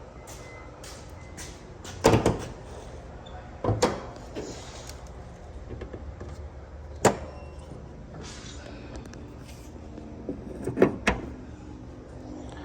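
Four sharp knocks and clunks, with a low steady hum between them; the loudest comes in the first part.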